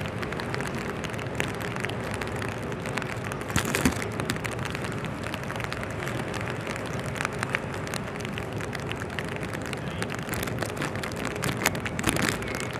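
Steady rain, with many small drops ticking on a surface close to the microphone and a couple of louder knocks, one about a third of the way in and one near the end.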